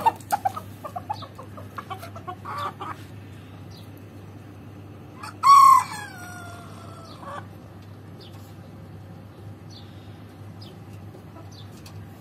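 Chickens clucking in a quick run of short squawks at the start. About five seconds in, a rooster crows once, a cock-a-doodle-doo of about two seconds that starts high and steps down in pitch. This crow is the loudest sound.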